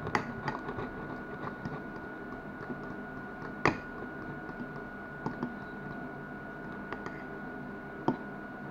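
A hand mixing a crumbly yellow mixture in a glass bowl: soft squishing with irregular clicks and taps against the glass, the loudest a little under four seconds in and another near the end. A steady high tone runs underneath.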